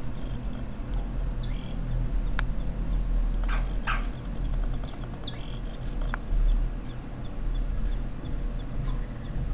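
Recorded songbird chirps from a bird video for cats, played through computer speakers: a quick, steady run of short falling chirps, about four a second, over a low electrical hum.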